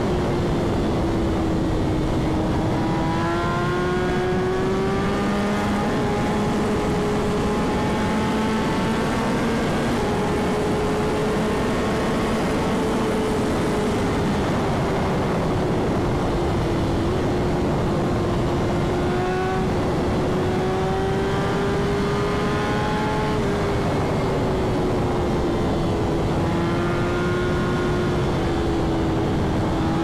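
BMW S1000RR's straight-piped inline-four engine running at high revs at sustained highway speed. Its pitch drifts gently up and down, under heavy wind rush.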